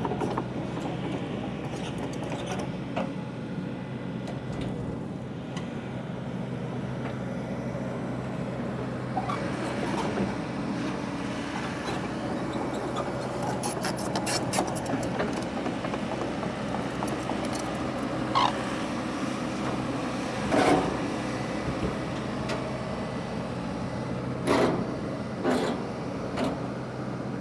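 Sany excavator's diesel engine running steadily under work, with several sharp cracks and knocks in the second half.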